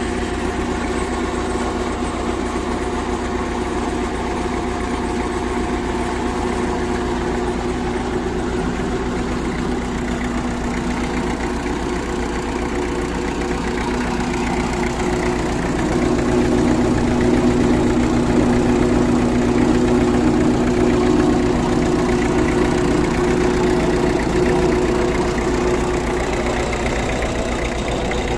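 Tractor diesel engine running steadily, driving a PTO water pump through its power take-off. It grows somewhat louder a little past halfway through.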